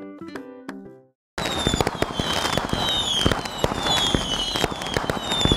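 Plucked guitar music fades out about a second in; after a short gap, a fireworks sound effect starts: a dense crackle of many sharp pops with short falling whistles repeating about twice a second.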